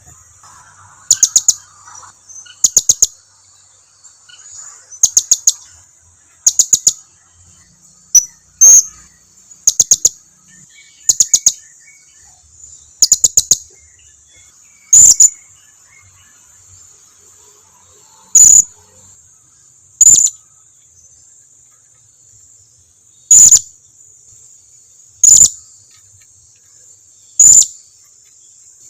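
Blue-crowned hanging parrot (serindit) calling in sharp, very high chirps. The chirps come in short clusters of a few quick notes every second or two, spacing out to single chirps every two to three seconds later on, over a faint steady high insect hum. It is a lure call meant to make other hanging parrots answer.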